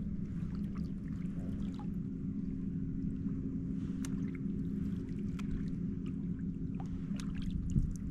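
Water dripping and trickling with scattered small ticks and splashes, over a steady low hum.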